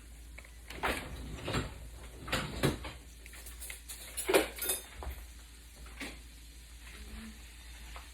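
Kitchen utensils and dishware clinking and knocking, about half a dozen separate hits, the loudest about four seconds in.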